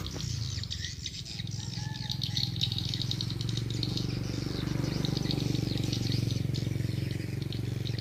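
Edible-nest swiftlet twittering: a dense, unbroken run of rapid high chirps from the swiftlet house's lure-call speakers and the birds circling it, over a steady low hum.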